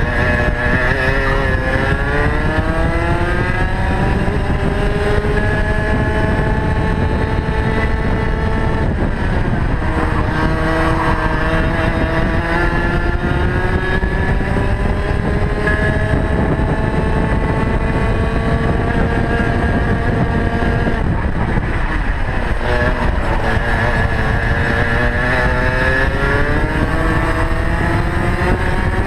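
Rotax Max 125cc single-cylinder two-stroke kart engine heard onboard at racing speed. The revs climb steadily for several seconds at a time and drop sharply twice, about nine seconds in and again about twenty-one seconds in, as the kart slows for corners, then climb again.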